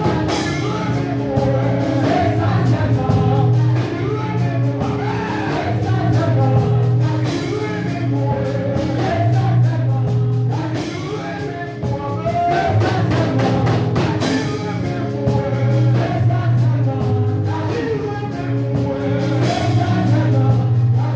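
A man singing a gospel song into a handheld microphone over amplified band accompaniment, with a steady bass line and a few cymbal crashes.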